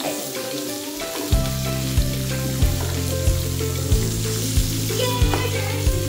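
Meat sizzling on a tabletop grill pan, as pieces are turned with forks and chopsticks. Background music with a deep, steady beat comes in about a second in, about three beats every two seconds.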